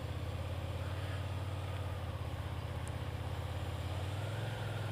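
Suzuki SFV650's V-twin motorcycle engine running steadily at low revs, with a light hiss over it.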